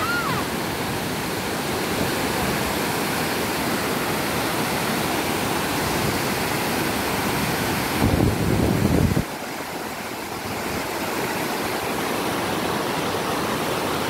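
Steady rush of water overflowing a dam spillway and pouring down its sloping concrete face. About eight seconds in, a louder low rumble lasts for about a second.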